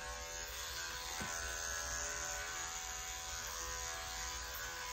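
Cordless electric dog clippers running steadily with a motor hum and buzz while clipping a Scottish terrier's coat.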